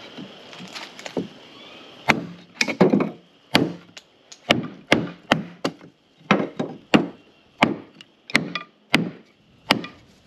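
Pine kindling being split by hand with a wooden-handled blade: a run of sharp chops into wood, about two a second, starting about two seconds in.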